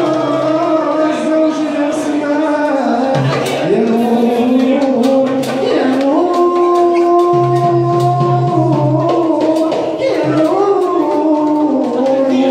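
Live folk music: a male voice sings long, held notes that slide between pitches, over a low steady drone and hand-drum beats.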